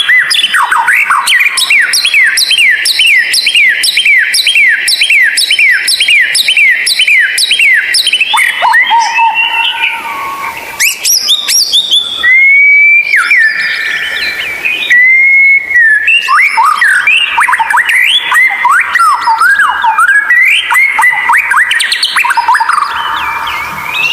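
White-rumped shama (murai batu) singing. It opens with a fast run of repeated whistled notes, about two or three a second, then moves into varied whistled phrases with a couple of long, steady held notes midway.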